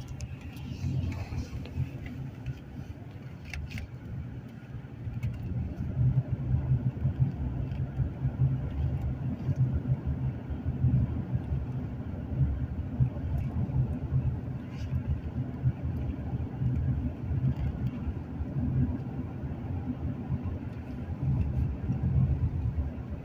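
Road noise inside a moving car's cabin: a steady low rumble of tyres and engine that swells and eases a little, with a couple of faint clicks.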